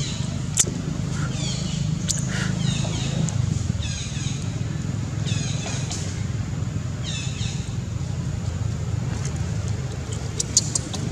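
Baby macaque crying: about half a dozen short, high-pitched, falling squeals, a second or so apart, over a steady low rumble.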